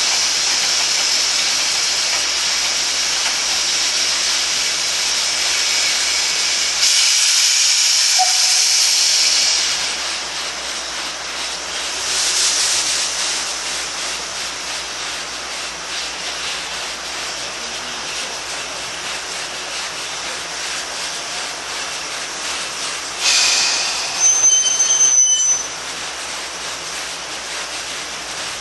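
Steam locomotive No 40 hissing steam, with the hiss swelling louder a few times. Near the end a louder burst of hissing carries a high, thin squeal for about a second and a half.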